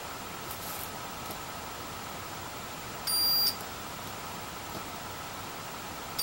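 Digital multimeter in continuity mode giving a short high-pitched beep, about half a second long, about three seconds in, with a second beep starting right at the end. Each beep means the probes have found continuity, a good solder connection between an ESP32 module pin and its breakout-board pin.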